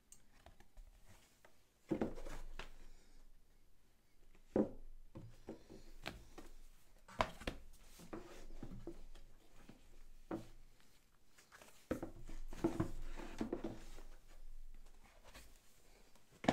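Cardboard punch boards and game components being handled on a table: irregular knocks, taps and rustles, with louder clusters about two, four and a half, seven and twelve seconds in.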